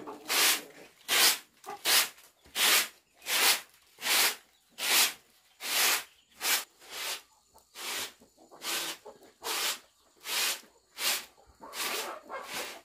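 A broom sweeping a dusty concrete floor in quick, even swishes, about one stroke every 0.7 seconds.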